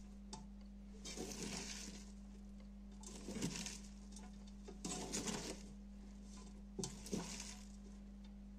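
Shredded cabbage, carrot and sweet pepper being tossed and mixed by hand in a stainless steel pot: soft rustling crunches in four short bursts, about two seconds apart, over a steady low hum.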